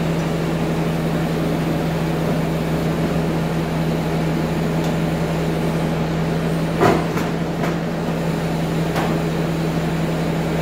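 Bobcat compact track loader's diesel engine idling steadily, with a few short knocks over it, the loudest about seven seconds in.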